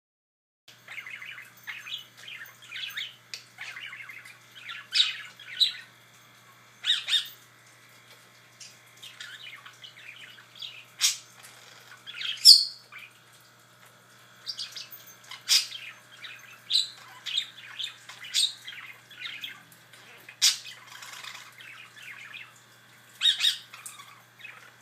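Pet parrot chattering: a run of short chirps and whistles, broken by sharp squawks every few seconds, the loudest about halfway through.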